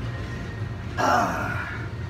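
A lifter straining through a rep lets out a loud, breathy exhale about a second in, falling in pitch, over steady background music.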